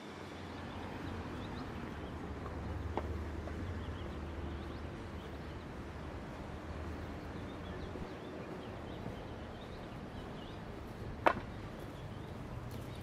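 City street ambience: a steady wash of traffic with a low engine hum, a sharp click about three seconds in and a louder knock near the end.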